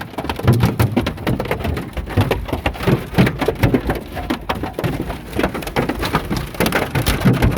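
Hailstones pelting a car's body and back window: a dense, irregular clatter of hard hits over steady rain noise, a severe beating that threatens to break the glass.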